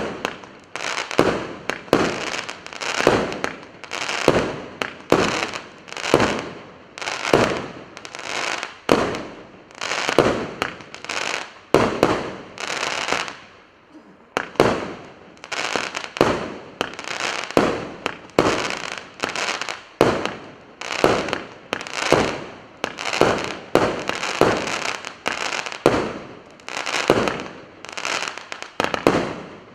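A 78-shot firework cake firing its shots in steady succession, about one and a half a second, each a sharp report with a short fading tail. There is a brief lull about fourteen seconds in before the shots resume.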